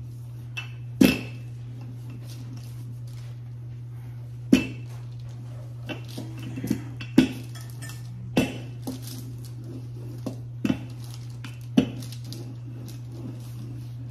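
Wooden rolling pin knocking against a silicone baking mat on the countertop while a still-cold, stiff pie crust is rolled out: about eight sharp, irregular knocks over a steady low hum.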